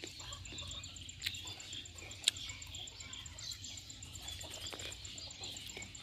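Outdoor ambience of small birds chirping over a steady, evenly pulsing insect trill. Two sharp clicks about a second apart, the second the louder.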